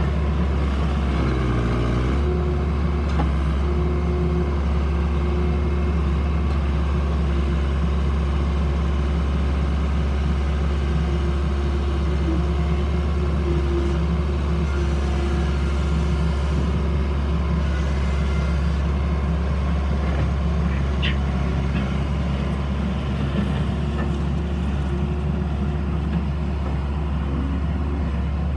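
Case 1840 skid steer loader's diesel engine running steadily at an even pitch.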